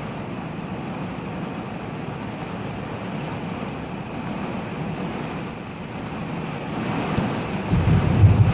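Heavy rain falling steadily, with a low rumble of thunder building near the end.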